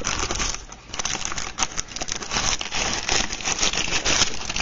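Crinkly yellow wrapping crackling and rustling as it is handled close to the microphone, with many small crackles throughout.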